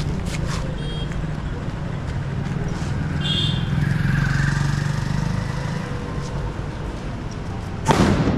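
A firecracker on the road goes off near the end with one short, loud bang, over a steady hum of street traffic.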